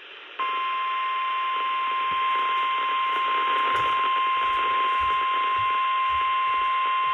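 NOAA Weather Radio's 1050 Hz warning alarm tone: one steady, piercing tone that switches on about half a second in and holds, over receiver hiss. It signals that a warning message is about to be broadcast.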